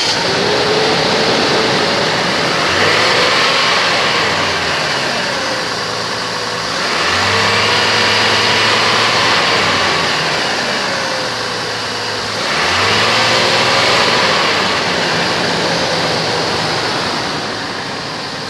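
2004 Chevrolet Trailblazer EXT's Vortec engine running. It is revved up three times, each rev held for a few seconds before it drops back to idle.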